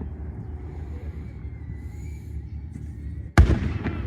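A firework shell bursts with one sharp, loud bang about three and a half seconds in, and its echo trails off. A steady low rumble runs underneath.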